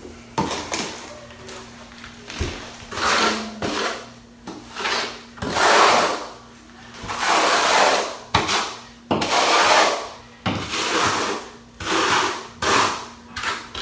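Steel trowel scraping and spreading thinset mortar on a plywood subfloor in repeated strokes, about one a second.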